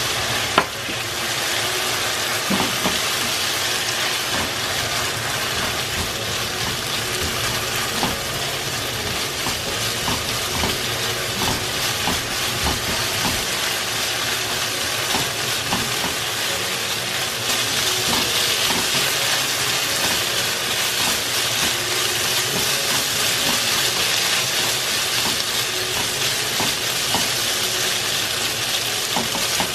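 Minced pork and eggplant sizzling in a nonstick frying pan while being stirred and scraped with a silicone spatula, with scattered light knocks of the spatula against the pan. The sizzle gets louder a little past halfway.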